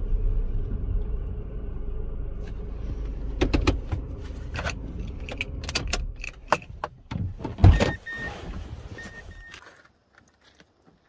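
First-generation Mazda3 hatchback idling, with a string of sharp clicks and key jingle as the ignition key is handled, a heavy thunk about two-thirds of the way in, and a warning chime beeping twice. The engine shuts off near the end.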